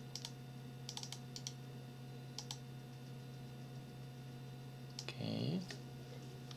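Computer keyboard keystrokes, a few scattered clicks at a time over a steady low electrical hum. About five seconds in, a brief murmured vocal sound, the loudest moment.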